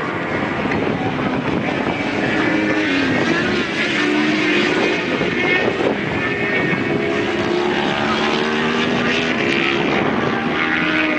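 Several racing motorcycle engines running at once across the circuit, their pitches rising and falling as they rev.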